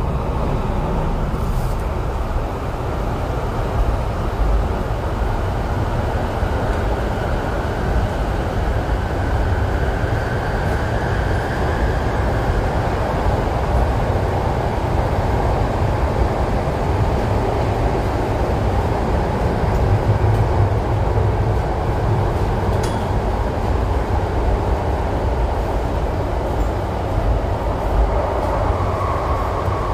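MTR East Rail line R-Train running at speed, heard from on board: a steady rumble of wheels on track with a faint whine that drifts in pitch.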